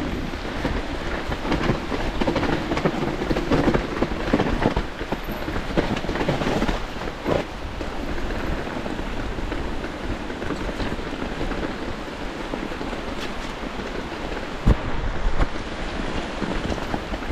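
Giant Glory downhill mountain bike descending a wet trail in the rain. A steady rushing noise of wind, rain and tyres rumbles on the camera microphone, with scattered knocks and rattles and one sharp thump about fifteen seconds in.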